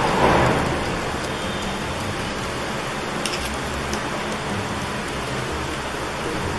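A steady even hiss in the background, with a few faint clicks and scrapes of two forks mixing canned mackerel, egg and flour in a bowl.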